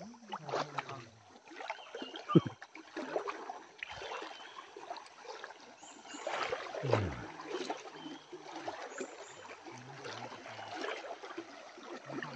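River water splashing and trickling, with low voices now and then and a sharp knock about two seconds in.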